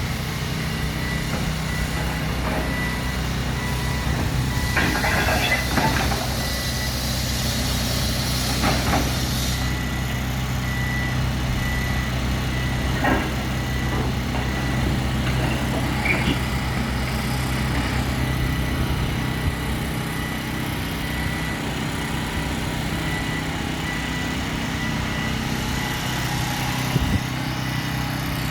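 Heavy earthmoving machine engine running steadily under light load. A few metallic clanks come about 5, 9, 13 and 16 seconds in, and a faint high beeping repeats throughout.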